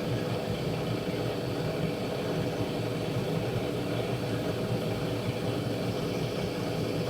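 Wall-mounted gas boiler running steadily at about 80% power in heating mode, with the combustion chamber open: an even noise of burner and fan, with no whistle or squeal.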